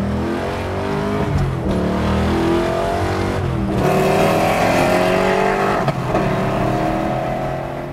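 1966 Ford Galaxie's crate V8 under hard acceleration, revving up toward 6,000 rpm. It climbs in pitch and drops back at upshifts about two, four and six seconds in.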